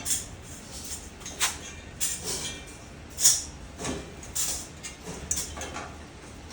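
Metal parts of a microwave stand being handled and fitted during assembly: irregular clinks and knocks, the sharpest about three seconds in.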